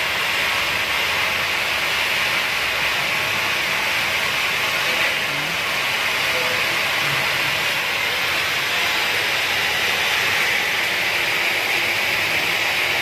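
Oxy-fuel cutting torch hissing steadily as it cuts through a ship's steel bottom plating that was damaged in a grounding.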